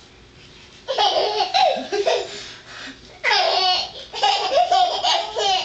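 A baby laughing in high-pitched bouts, starting about a second in, with a burst of fast, shaky giggling about three seconds in.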